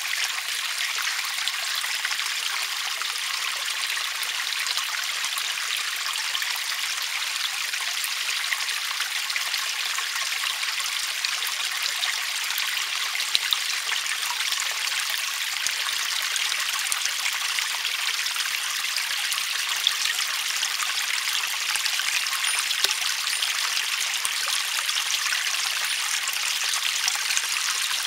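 Water trickling steadily over stones in a small garden pond water feature.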